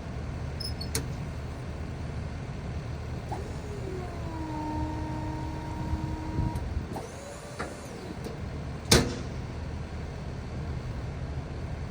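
A vehicle or machine engine running steadily. Partway through, a whine drops in pitch and holds for about two seconds, and one sharp click comes near the end.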